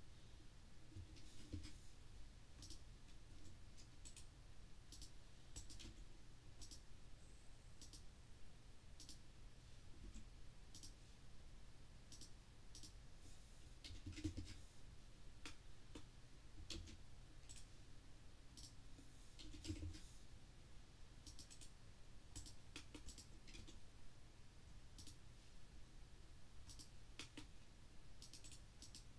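Faint, irregular clicks of a computer mouse and keyboard, about one a second, with a few soft low thuds among them.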